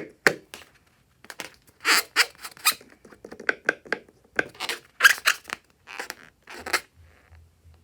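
Rubber balloon squeaking and crackling as it is handled: a quick run of short, irregular squeaks that stops about seven seconds in.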